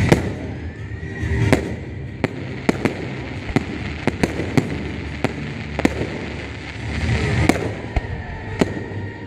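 Professional fireworks display: aerial shells and low firework batteries bursting in an irregular string of sharp bangs, about two a second.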